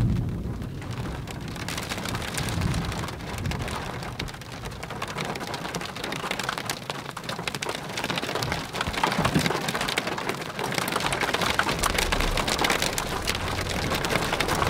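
Rain pattering on a car's windshield and roof as heard from inside the cabin, a dense crackle of drops, with low rumbles of thunder near the start and again near the end.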